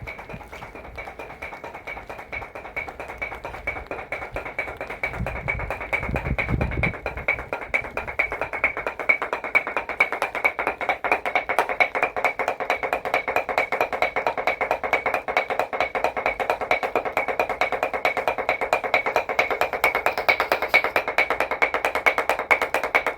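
Korean dadeumi: wooden paddles beating cloth on a stone block in a fast, even rhythm of sharp strikes, growing louder over the first several seconds and then holding steady.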